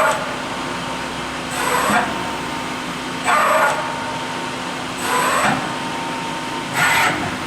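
Fanuc Robodrill Alpha-T21iD vertical machining center's axis servos making short rapid jog moves on the Y axis: five brief whirring bursts, about one every second and a half, over the machine's steady hum.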